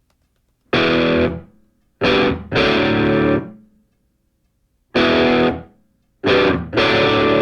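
Background music: distorted electric guitar playing loud chord hits. Each chord rings for a moment and then stops, with short silent gaps between them, in a stop-start rhythm.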